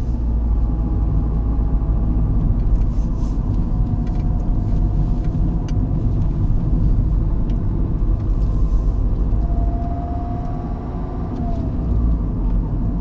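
Car driving along a winding road, heard from inside the cabin: a steady low rumble of engine and tyres, with a faint whine that comes in briefly near the end.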